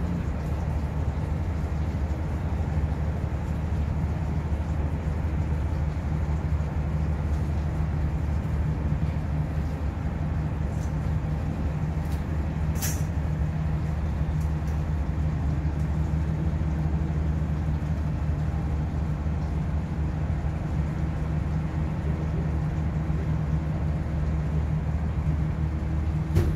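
Ship's engine and machinery droning steadily and low, heard from on deck. A single short click comes about halfway through.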